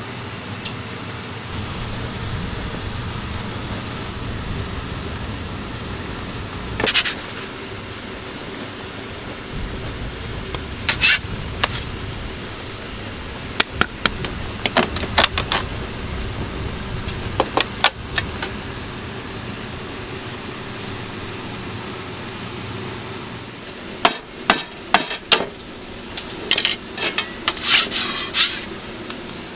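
Metal dalgona tools, a flat steel press and a cutter mould, clicking and tapping sharply on the slab as the melted sugar candy is pressed flat and stamped, with a quick run of taps near the end. A steady low hum runs underneath.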